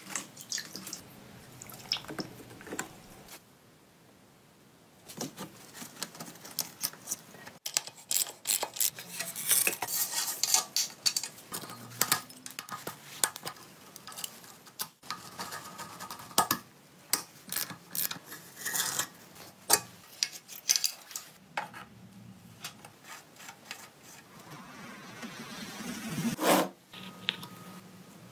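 Hand tools clinking and scraping against metal parts: a run of sharp metallic clicks and clatter, densest through the middle stretch.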